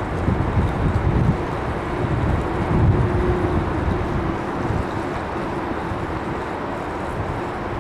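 Strong wind buffeting the microphone in irregular gusts, over the steady rumble of a jet airliner's engines with a faint held tone.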